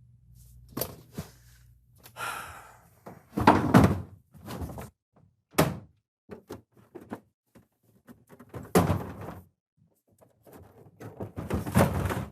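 A series of irregular thumps and knocks with scuffling noise between them, loudest about three and a half seconds in, around nine seconds in and near the end.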